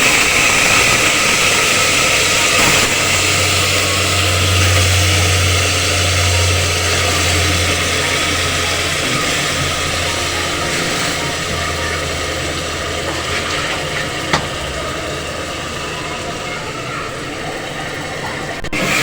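Beef pieces sizzling in hot oil and fried spice paste, the sizzle slowly dying down, with one sharp tap about three-quarters of the way through.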